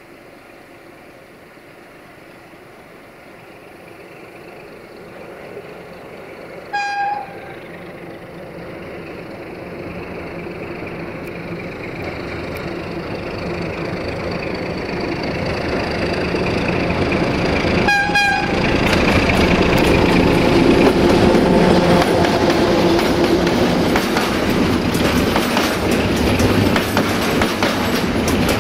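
A 060-DA (LDE2100) diesel-electric locomotive with a Sulzer engine approaches, its engine growing steadily louder. It sounds two short horn blasts, about seven seconds in and again about eleven seconds later. Then the intermodal container wagons roll past close by with a fast clickety-clack of wheels over the rail joints.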